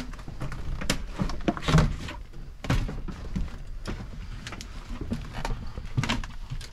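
Irregular knocks, clunks and rattles of a Cessna 401 cabin seat being worked loose and lifted off its metal floor rails, with several heavier thuds among lighter clicks.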